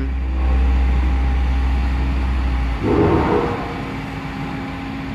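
Vögele Vision 5200 asphalt paver's diesel engine running steadily, a deep drone with a constant hum over it. About three seconds in the deep drone drops away with a short rough noise, leaving a fainter steady engine hum.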